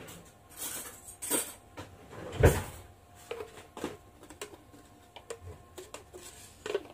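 Clicks, knocks and brief rustling from a small baking-powder container being opened and handled, with one louder knock about two and a half seconds in.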